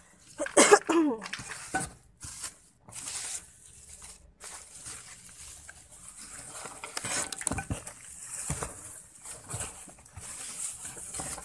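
Indistinct shop background noise: a short burst of voice about half a second in, then uneven rustling and handling noise with scattered light knocks.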